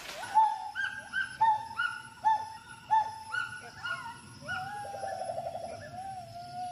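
Gibbon calling: a run of sharp hoots, each swooping up and then dropping, repeated every half second or so, then a longer wavering note with a quick trill in it about five seconds in.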